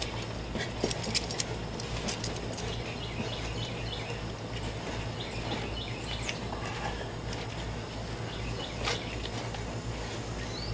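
Shoes scuffing and shoving against a concrete footing block in a dirt hole, with a few small knocks and scrapes, over a steady low hum. A few faint bird chirps come in the middle.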